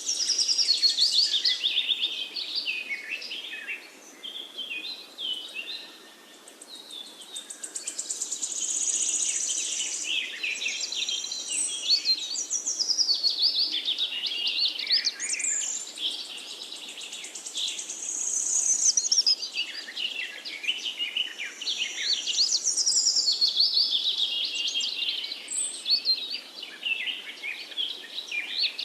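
Several songbirds chirping and singing at once, a dense run of quick overlapping chirps and trills that rises and falls in loudness.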